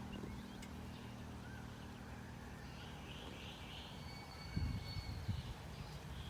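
Low steady hum of a vehicle engine running, with faint high chirps, like birds, about halfway through and a few low rumbling bumps near the end.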